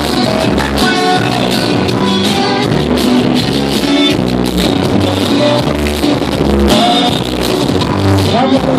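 Loud music with a singing voice over a steady, regular beat.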